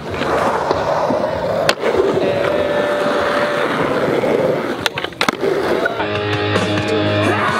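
Skateboard wheels rolling on concrete, with sharp clacks of the board hitting the ground about two seconds in and a few more around five seconds. From about six seconds in, music with held notes takes over.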